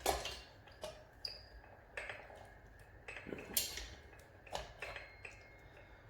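Small metal parts clicking and clinking as an exhaust gasket, bolts and pipe are handled and fitted to an RC truck's tuned pipe: about half a dozen separate sharp clicks, the loudest about three and a half seconds in.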